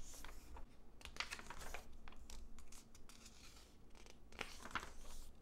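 Magazine pages being turned by hand, a run of faint, irregular paper rustles and swishes.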